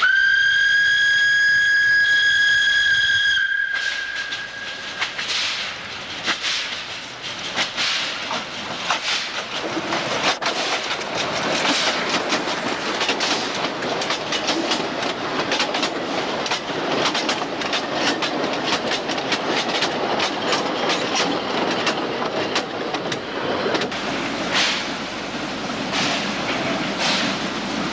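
A narrow-gauge train sounds one long, steady whistle blast, then passes close by, its wheels clicking rapidly and continuously over the rails. Near the end the clicking gives way to slower, more widely spaced beats.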